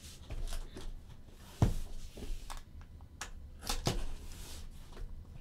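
A cardboard shipping case being picked up and handled: several knocks of the cardboard with rubbing scuffs between, the loudest knock about a second and a half in.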